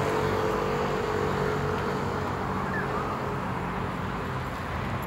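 Steady traffic noise with the even drone of a running engine.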